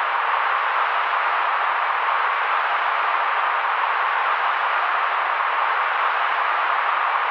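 Steady white noise for baby sleep: an even, unbroken hiss with most of its weight in the middle range and little deep or very high sound, unchanging throughout.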